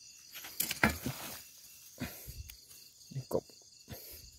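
A steady chirring of night crickets, broken by a few short knocks and rustles from hands working soil. The loudest knock comes about a second in.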